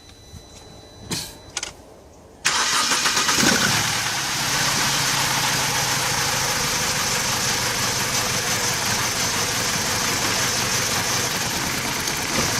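BMW E90 engine starting about two and a half seconds in, flaring briefly, then settling into a steady idle. It is running with a misfire from a dead number-one ignition coil.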